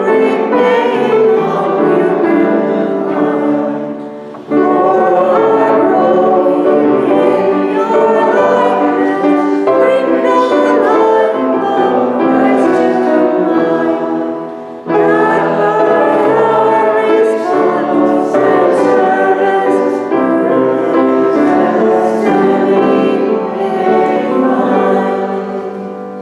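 A hymn sung by a choir of many voices, phrase by phrase, with short breaths between verses about four and fifteen seconds in, and fading out near the end.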